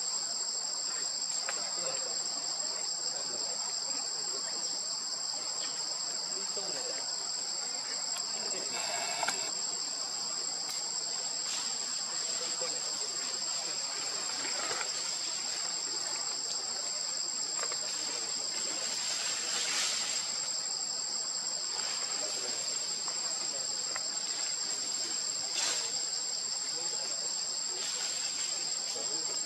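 Steady insect chorus: a constant high buzz with a thinner, higher whine above it. A brief faint pitched call cuts in once.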